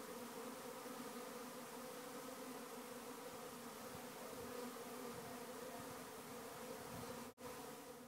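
A swarm of honeybees humming as they fly around their nest hole in a hollow tree and head back into the hive: a steady, many-voiced buzz with a constant pitch. It cuts out for an instant near the end.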